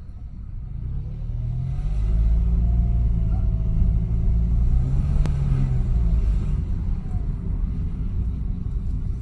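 2017 Mitsubishi Mirage's three-cylinder engine and CVT drivetrain under way, a low rumble that builds over the first two seconds with a faint tone rising and then falling, and a single click about five seconds in. This is the noise the owner hears when driving at certain revs and takes for a metal part vibrating as the car accelerates; it grows with the air conditioning on.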